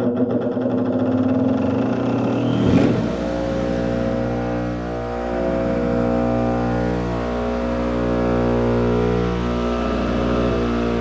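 Electric motor of a shop-made sanding station switched on and running with a steady hum. About three seconds in there is a knock, after which a deeper low hum joins and runs on.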